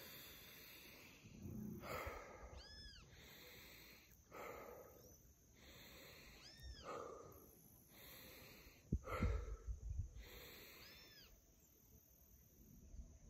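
A person breathing deeply and rhythmically through the nose in a breathing exercise, a slow breath about every two seconds. Three short, high rising-and-falling squeaks come during some of the breaths, and a few low thumps come about nine seconds in.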